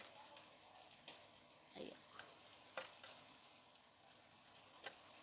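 Faint, steady sizzle of croquettes deep-frying in oil in a deep fryer, with a few sharp clicks of metal tongs.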